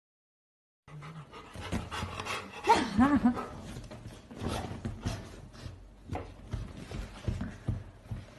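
Dog whining in short cries that bend up and down in pitch, starting about a second in and loudest around the third second, among short snuffling, clicky noises.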